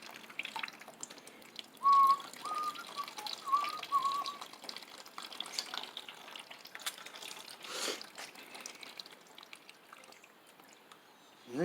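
Water-contaminated gasoline trickling and dripping out of a push mower's fuel tank into a drain pan, a sign the tank is full of water. About two seconds in, a few short whistled notes sound over it, the loudest thing heard.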